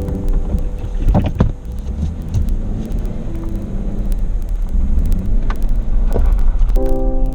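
Jeep driving on a forest back road: a steady low rumble with scattered knocks and clicks from the road. A few held music notes come in near the end.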